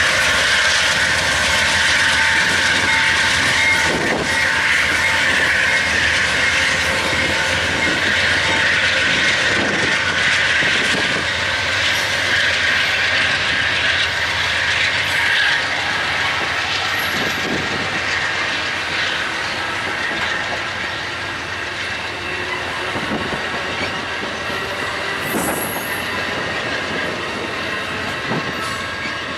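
An Amtrak passenger train led by GE P42DC diesel locomotives pulls out past the platform, then its bilevel Superliner cars roll by with wheels squealing on the rails and clicking over rail joints. The sound stays steady and fades slowly as the train moves on.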